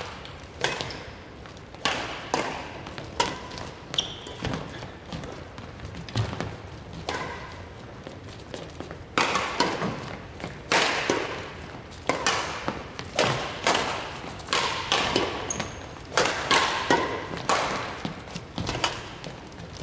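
Badminton rackets striking a shuttlecock in a rally: sharp smacks about once a second, echoing in a large hall.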